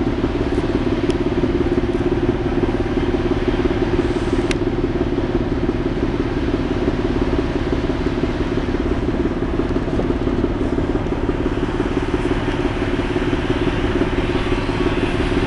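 The engine of the car ferry Dorozhnik running steadily under way, a constant low drone heard from the open deck.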